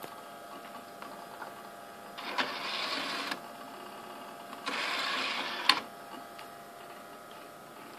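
Power Macintosh 7500's CD-ROM drive tray motoring out and then, about two seconds later, back in, each run lasting about a second and ending in a click, the second in a sharp clunk as the tray seats. The computer's steady fan hum runs underneath.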